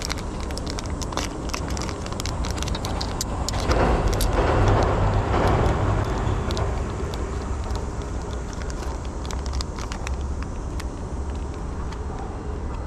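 A road vehicle passing, its noise swelling and fading about four to six seconds in, over a steady low rumble, with scattered light clicks.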